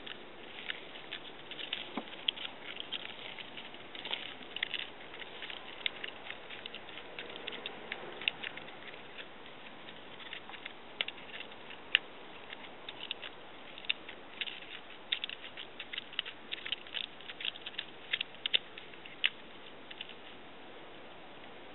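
A Siamese-type cat sharpening its claws on a cut log, raking the bark in quick irregular runs of dry scratches. The scratching stops about two seconds before the end.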